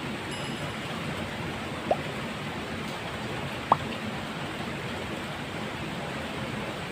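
Steady hiss of falling water, with two sharp water plops about two and nearly four seconds in, each a quick upward-rising pip.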